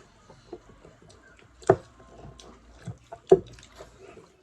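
Close-up eating sounds: a person chewing with small wet smacks and clicks of the mouth, broken twice by a sharp, louder click about a second and a half apart.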